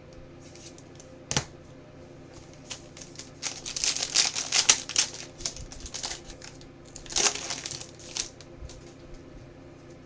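Trading cards and their plastic wrapping or sleeves being handled and crinkled, with a sharp click about a second in and the loudest crinkling in the middle.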